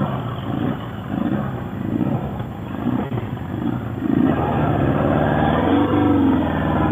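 Motorcycle engine running while riding, getting louder about four seconds in as its pitch rises and falls with acceleration.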